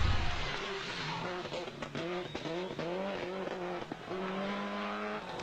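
Rally car engine revving hard, its pitch climbing and dropping repeatedly through quick gear changes, with sharp pops, and holding a steady note near the end. A heavy low thump opens the sound.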